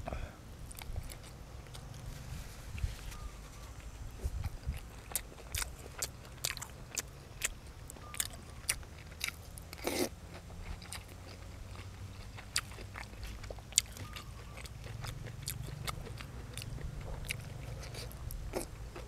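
A person chewing and crunching food close to the microphone, with crisp bites scattered irregularly throughout.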